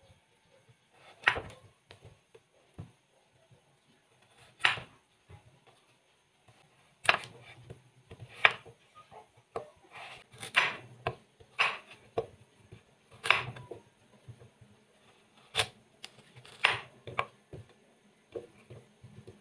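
Kitchen knife cutting peeled potatoes and then a carrot on a bamboo cutting board: about ten sharp knocks of the blade on the board, spaced irregularly a second or two apart.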